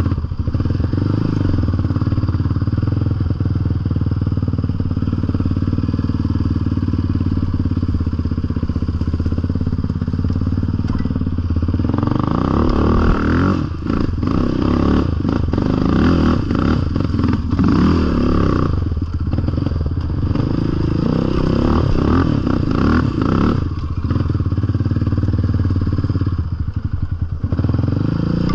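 A Yamaha sport ATV engine running at low speed on a rough trail. Its revs pick up for several seconds about halfway through and again a few seconds later. Clattering knocks from the machine riding over bumps come during those revs.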